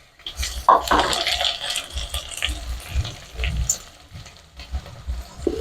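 Wet hissing and splashing as boiled soup bones go into a hot pot of frying onions and carrots, loudest in the first couple of seconds and then dying down.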